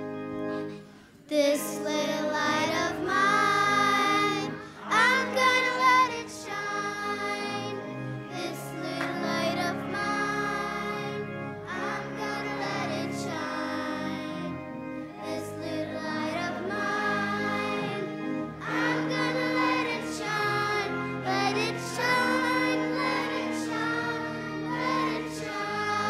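Music: a choir with children's voices singing to instrumental accompaniment. It starts after a brief dip about a second in.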